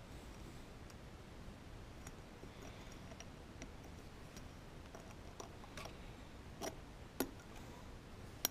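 Faint, scattered light clicks and ticks of a piston ring being worked by hand into its groove on a Wiseco piston, a few separate clicks with the sharpest about seven seconds in and another near the end.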